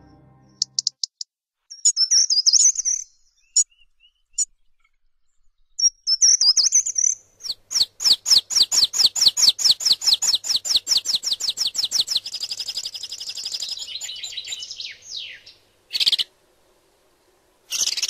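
Small songbirds singing: a few short, high warbled phrases, then a long rapid trill of repeated notes lasting about eight seconds that falls in pitch as it ends, and two brief calls near the end.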